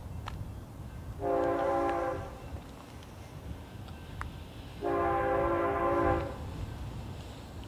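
Air horn of an approaching BNSF GE ES44C4 freight locomotive sounding two chord blasts, the first about a second long and the second about a second and a half, over a steady low rumble.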